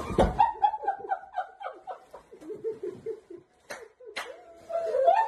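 Hard laughter in a rapid run of short, high-pitched laughs, broken by two sharp clicks about four seconds in, then laughing again near the end.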